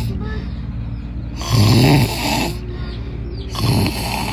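A person snoring loudly: two snores, a longer one about a second and a half in and a shorter one near the end.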